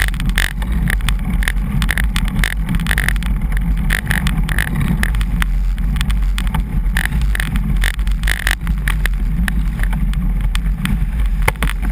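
Wind buffeting and road rumble picked up by a GoPro mounted on a road bicycle while riding, a loud steady low rumble with frequent short clicks and knocks from bumps in the road.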